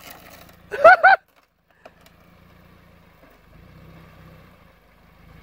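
A short spoken word about a second in. Then the Subaru four-wheel-drive off-road car runs faintly and steadily.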